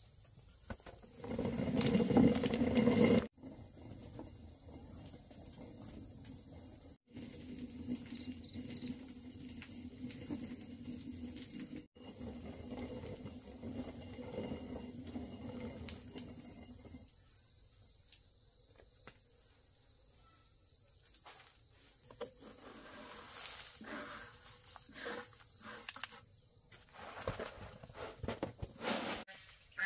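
Insects droning steadily at a high pitch through most of the clip. A louder, lower noise fills the first few seconds and cuts off abruptly. Scattered clicks and knocks come near the end.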